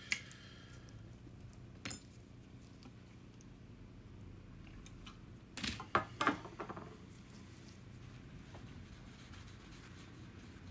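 A few small hard clicks and clinks of repair tools being handled and set down on a workbench: one near the start, one about two seconds in, and a short cluster around six seconds in, over a low steady background hum.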